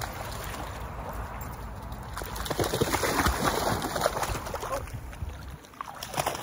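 A golden retriever puppy hopping and bounding through shallow seawater, splashing as it goes. The splashing is loudest in the middle few seconds.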